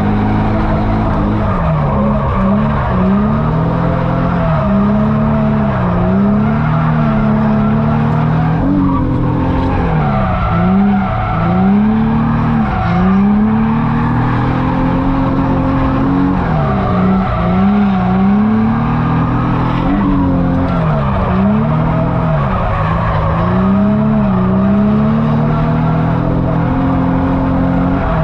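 Infiniti G35's 3.5-litre V6 revving hard through a drift run, its pitch dropping sharply and climbing back every second or two as the throttle is worked, with tyres skidding and squealing.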